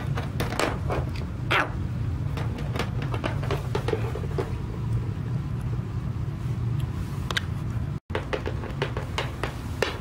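Small plastic toy figures tapped and set down on a wooden floor by hand, a scatter of light clicks, over a steady low rumble. The sound cuts out for an instant about eight seconds in.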